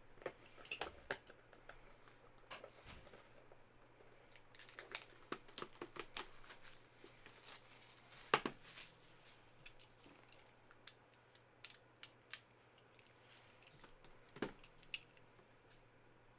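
A box of graded trading cards being opened by hand: faint scattered crinkling, tearing and small clicks of the packaging, with a sharper tick about halfway through and another near the end.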